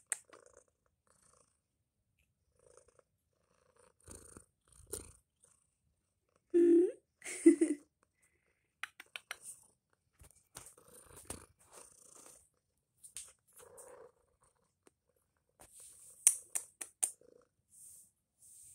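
Domestic cat making two short meows about seven seconds in, with purring at times. There are soft rustles and light clicks of movement between the calls.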